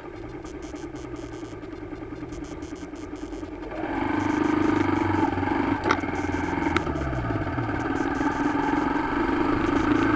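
Motorcycle engine idling steadily, then about four seconds in it revs up and gets louder as the bike pulls away and accelerates, its pitch rising. Two sharp clicks come a second apart shortly after it moves off.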